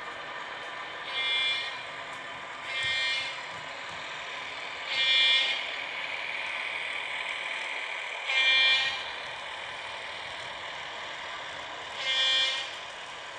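Sound decoder of an H0 model diesel locomotive ("Nurek") playing a steady engine drone with five short horn blasts, each under a second, a couple of seconds apart.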